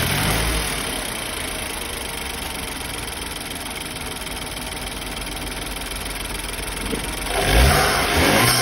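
BMW 328i engine idling steadily with its crankcase-ventilation valve cover off and the diaphragm exposed, as a check on whether a torn diaphragm is causing its loud hiss. About seven and a half seconds in, the engine is revved briefly and settles back.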